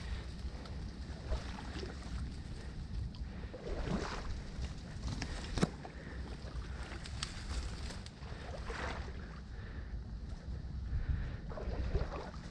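Wading through shallow marsh water among dry reeds: water sloshing and stalks swishing against clothing in surges every few seconds, over a low wind rumble on the microphone. A single sharp click a little before halfway through.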